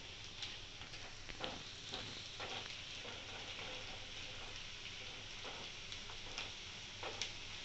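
Hot oil sizzling steadily in an aluminium kadai as crushed garlic and whole spices fry, with a steel ladle stirring through them and a few light clinks against the pan.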